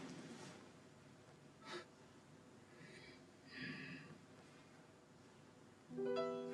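Quiet room with a man's faint breathing and a short exhale or sigh a little past the middle, and a soft click about two seconds in. Soft held music notes come in near the end.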